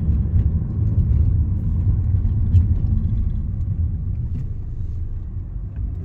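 Steady low engine and road rumble heard from inside the cabin of a moving car, easing off slightly in the second half.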